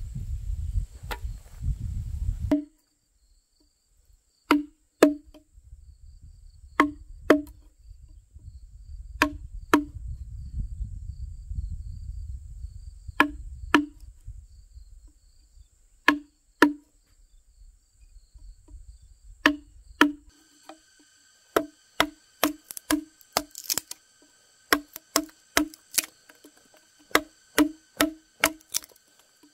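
A wooden mallet striking the handle of a wood chisel, cutting a mortise into a hewn log beam. The blows come in pairs about every two seconds, then turn into a quicker steady run, about two a second, in the last third.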